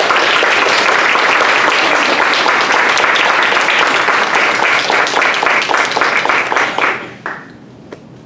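Audience applauding, thinning into a few separate claps and stopping about seven seconds in.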